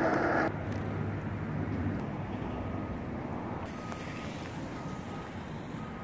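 Outdoor background noise. A loud rushing noise cuts off abruptly about half a second in, leaving a quieter steady low rumble of distant traffic. A few faint, short high tones come in the second half.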